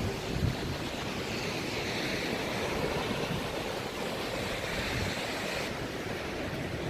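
Ocean surf breaking on a beach, a steady wash of noise, with wind rumbling on the microphone.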